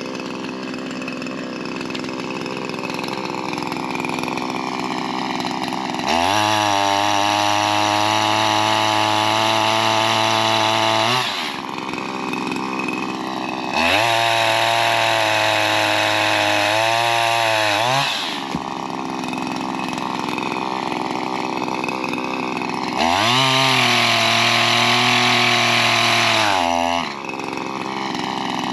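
Shindaiwa M230 multitool's small two-stroke engine driving a pole saw: idling, then revved to full throttle three times, each run held about four to five seconds while cutting tree limbs, dropping back to idle between.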